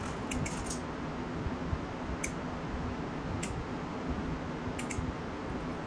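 A few light clicks from a small plastic wiring connector and switch being handled: a quick cluster near the start, single clicks about two and three and a half seconds in, and a close pair near the end. Under them runs a steady low hum.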